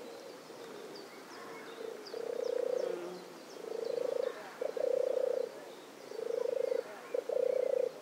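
European turtle dove (Streptopelia turtur) singing its low purring song: five rolling purrs, starting about two seconds in and spaced about a second apart, with a short clipped note leading the third and the fifth. Faint high chirps of other birds behind.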